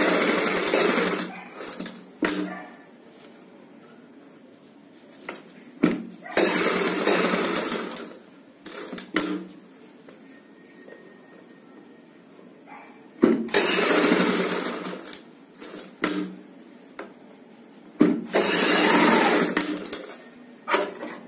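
Sewing machine running in four short bursts of about two to three seconds each, stitching a line along a strip of piping, with clicks and fabric handling in the pauses between runs.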